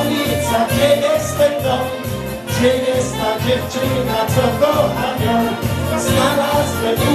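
Upbeat dance music with a steady bass beat, about two beats a second, and a singer's voice over it.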